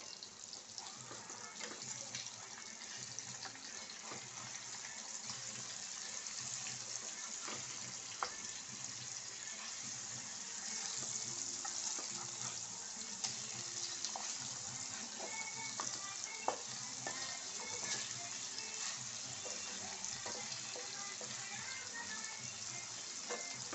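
Marinated fish steaks sizzling steadily as they shallow-fry in oil on a low flame, with a metal spatula now and then clicking and scraping against the pan as the pieces are moved and turned.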